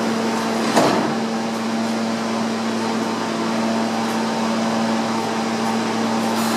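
Steady hum of an R160B subway car's air-conditioning and auxiliary equipment while the train stands in the station, with one constant low tone under it. A single short knock comes about a second in.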